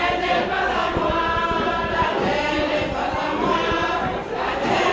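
A group of voices singing together like a choir, holding long notes.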